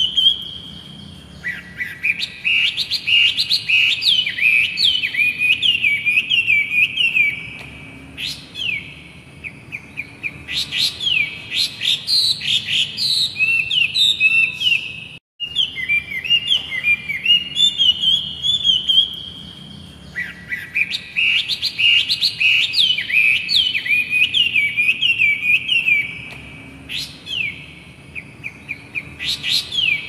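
Caged poksay laughingthrush singing: long runs of rapid, repeated downward-sweeping whistled notes, broken by short pauses. About halfway through the sound cuts out sharply for a moment.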